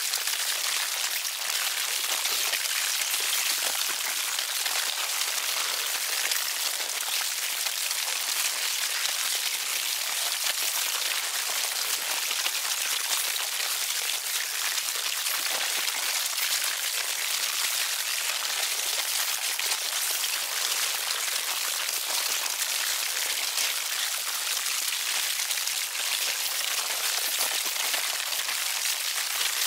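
Sound effect of a colony of insects eating flesh: a dense, steady crackling of countless tiny chewing and biting clicks, mostly high-pitched, made as a seamless loop.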